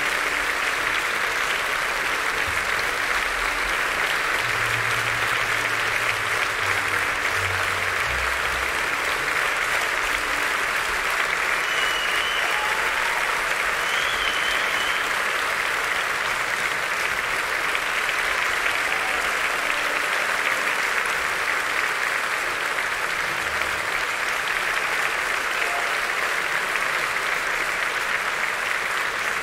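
Theatre audience applauding steadily at the curtain call.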